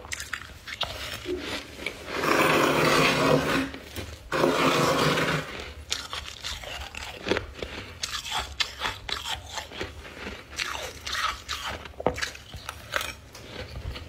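Close-up crunching and chewing of ice and frost in the mouth: two loud, longer grinding crunches about two and four seconds in, then a run of short, sharp cracks as the ice is chewed down.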